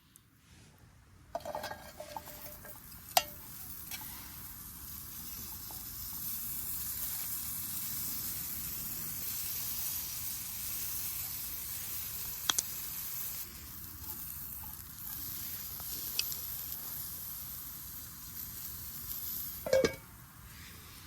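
Meat sizzling on top of a burning Swedish torch, a steady hiss that swells in the middle, with a few sharp clicks and a knock near the end.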